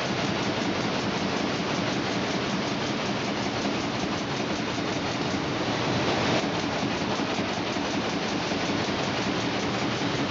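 Fan guard inner ring welding machine running in mass production, a steady mechanical clatter with a brief louder surge about six seconds in.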